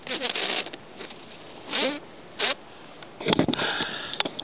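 Roller skate wheels rolling over a concrete skatepark bowl, their hum gliding in pitch as the skater's speed changes, with a louder, rattling clatter of wheels and hard knocks starting a little after three seconds in.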